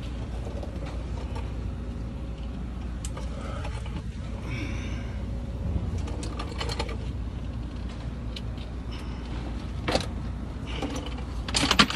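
Scattered sharp metallic clicks and clanks of hand tools being handled around a truck's brake caliper, the loudest cluster near the end, over a steady low background rumble.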